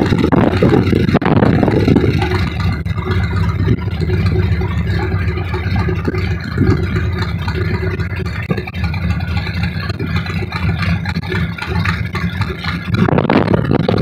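Cessna Skymaster's piston engines running at low power, a steady drone as the plane taxis along the runway. A louder rushing noise covers it at the start and again near the end.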